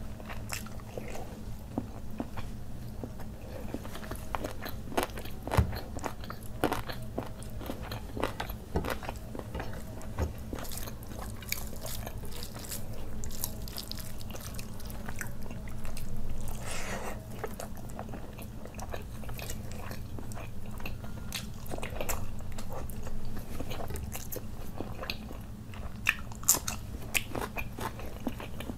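Close-miked chewing of a mouthful of butter chicken and fried rice eaten by hand: wet mouth sounds with many short sharp smacks and clicks at an uneven pace. A steady low hum lies underneath.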